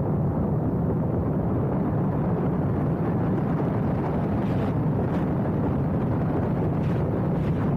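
Motorcycle engine running steadily at road speed, mixed with wind and road noise.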